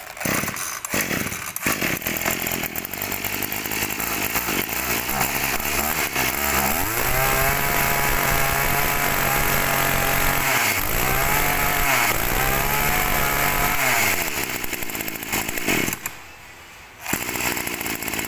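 Small petrol engine of a used Maruyama brush cutter starting up and idling. It is revved up twice to high speed, drops back to idle and shuts off about sixteen seconds in. A short burst of noise follows near the end.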